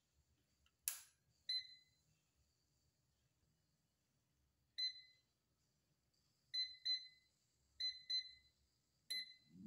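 Onemoon air fryer's touch panel beeping as its buttons are pressed to set the cooking timer: seven short, high beeps, two of them in quick pairs, after a single click about a second in.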